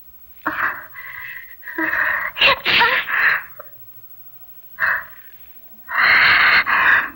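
A boy's voice gasping and breathing hard in a series of short breathy bursts, with a longer, loud one near the end.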